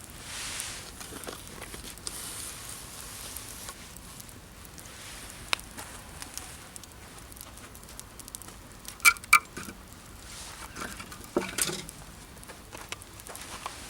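Wood campfire crackling softly with scattered small pops, mixed with the rustling of someone working around the camp. Two sharp clicks come close together about nine seconds in, and a louder rustle follows a couple of seconds later.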